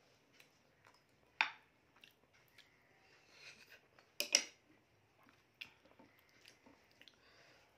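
Quiet eating by hand: a few short, sharp mouth smacks and clicks, with fingers brushing a plate. The loudest is a quick double smack about four seconds in.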